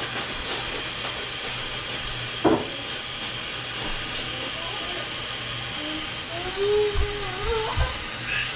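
Kitchen faucet running a steady stream of cold water into a stainless steel stockpot, filling it with a constant splashing hiss. A single knock sounds about two and a half seconds in.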